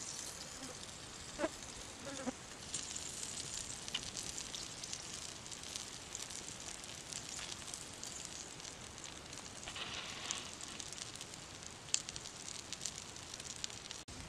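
Wood fire crackling under a stone slab, with a steady hiss and sizzle from the wet frogs heating on the hot stone and scattered sharp pops.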